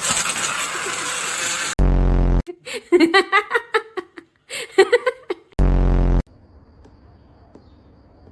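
A hissing noise, then a low buzzing fart sound effect, a burst of quick giggling laughter, and a second buzzing fart sound, each buzz about half a second long.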